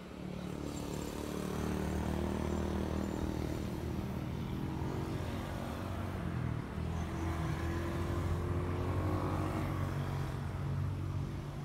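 A motor vehicle's engine running with a steady low hum, recorded on a phone's microphone.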